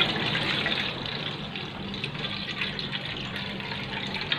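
Coconut milk poured in a steady stream from a metal bowl into an aluminium wok, splashing and pooling in the pan. A low steady hum runs underneath.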